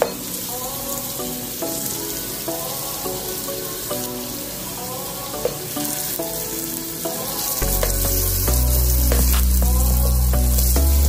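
Margarine melting and sizzling with sautéed onions and garlic in a pot, with a spatula and spoon now and then clicking and scraping against the pot. Background music plays over it, its bass coming in about two-thirds of the way through.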